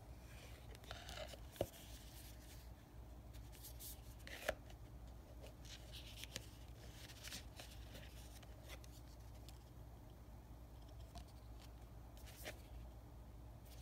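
Faint rustling and tapping of paper booklets and a cardboard watch box being handled, with two sharp clicks, about one and a half and four and a half seconds in.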